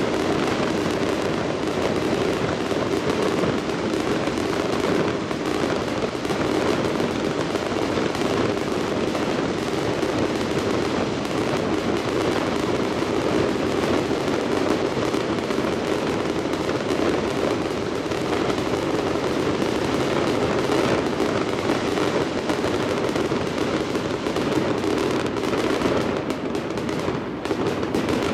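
Aerial fireworks going off in a dense, continuous barrage: bursts and crackling follow each other so fast that they run together without a break.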